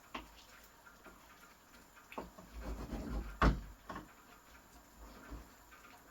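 Kitchen clatter: a handful of sharp knocks and clicks, the loudest about three and a half seconds in.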